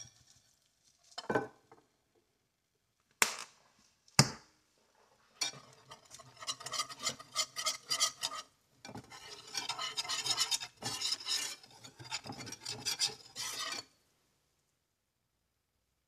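Metal wire whisk stirring a cream sauce in a skillet, its wires ticking rapidly against the pan, with a short pause partway through and a stop near the end. Three single sharp knocks on the pan come before the whisking starts.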